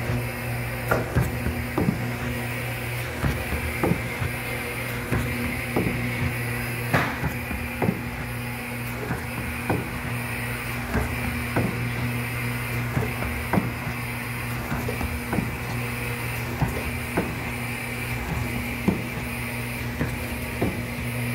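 Corrugated-blank feeding and labeling line running: a Walco VF280 feeder, a vacuum transport and a CTM 360 label applicator. The transport's vacuum gives a steady hum, with a sharp clack about every second as blanks are fed off the stack and labels are applied.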